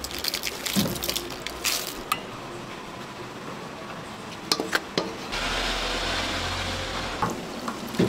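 Kitchen sounds from cooking at a steel pan: scattered metal clicks and taps, then just past halfway a steady rush of liquid pouring for about two seconds.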